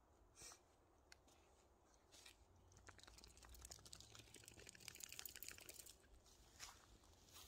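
Near silence, with faint scattered crackles and rustles that thicken into a quick run of small crackles from about three to six seconds in.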